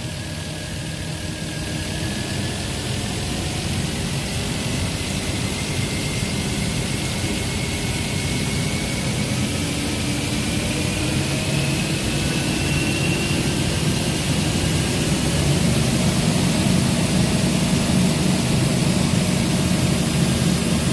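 Nissan TB45 inline-six forklift engine running, its RPM slowly raised from idle so that the pitch and level climb steadily. The low power comes from a plugged exhaust, most likely the catalytic converter, which chokes the engine as the revs rise.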